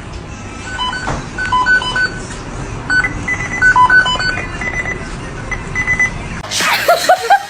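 Music: a simple tune of short, beep-like high notes over a low hum. About six and a half seconds in, it cuts to a sudden noisy burst with a pitch-bending voice or whine.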